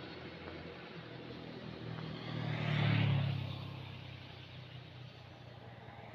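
An engine passing by: a low hum that swells to its loudest about three seconds in, then fades away.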